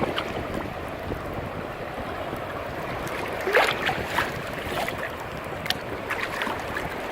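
Ocean surf washing with wind buffeting the microphone. A brief, rising high-pitched sound cuts through about three and a half seconds in.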